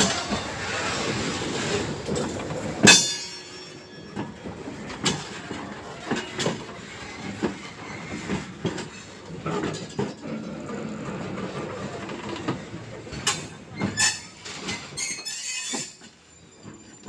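Train running on the rails, its wheels and cars clattering. There is a sharp, loud clank about three seconds in, then a run of uneven knocks and clacks.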